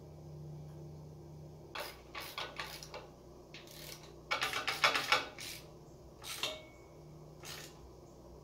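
Small metal parts and tools clinking and clattering as they are handled: a few scattered clicks, then a quick, louder run of rattling clinks near the middle, then two more single clicks.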